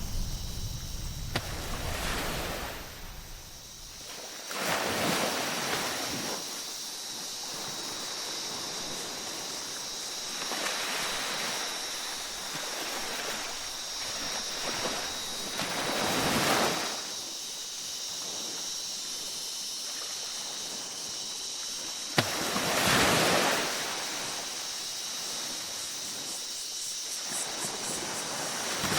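Waves breaking and washing up a beach, a rushing surge every five to six seconds, over a steady high-pitched tone.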